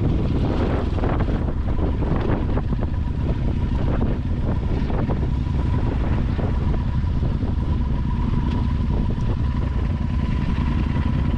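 Yamaha Super Ténéré parallel-twin motorcycle engine running steadily while riding, with wind buffeting the microphone.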